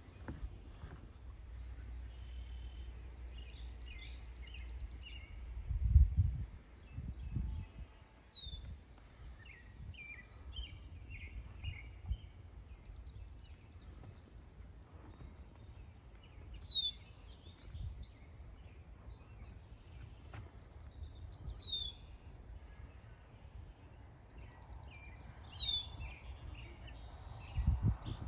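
Marsh birds calling and singing, with a high whistled note that slides down in pitch, heard four times. A few low thumps, about six seconds in and near the end, over a low background rumble.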